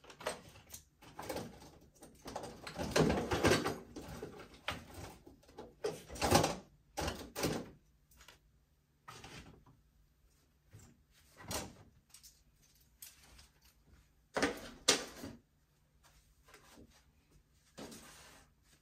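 Handling noises from installation work: irregular scraping, knocking and clicking for the first several seconds, then a few separate sharp knocks and clicks.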